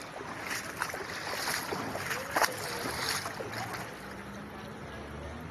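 Muddy floodwater in a street sloshing and splashing, with a run of irregular splashes through the first three seconds or so, then a steadier wash of water.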